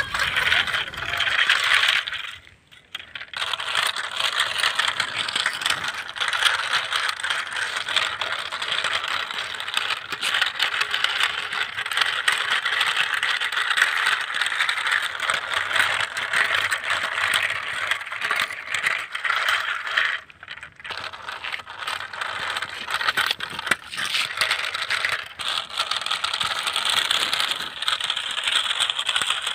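Plastic toy trucks, tied in a line, rattling and clattering as they are pulled over rough, dry ground, with two short pauses.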